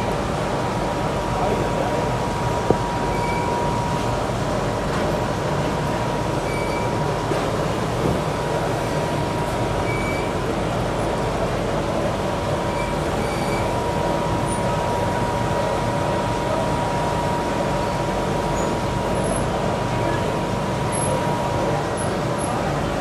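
Steady mechanical running noise with a constant whine, holding an even level throughout.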